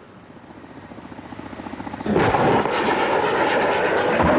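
Kamov Ka-50 attack helicopter in flight: the beat of its coaxial rotors grows steadily louder, then jumps suddenly to a much louder, dense noise about two seconds in and holds there.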